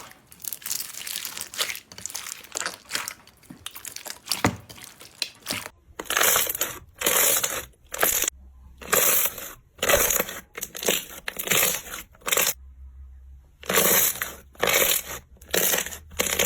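Slime being squeezed and pressed, crackling and crunching. Dense crackling for the first several seconds gives way to separate crunchy squeezes about once a second, and the sound cuts off abruptly at the end.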